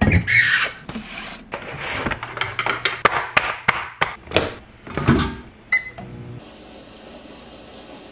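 Crinkling plastic film and clicking of a plastic meal tray as a fork jabs through the film, over a low steady hum. A short beep comes about two-thirds of the way in, then only quiet room noise.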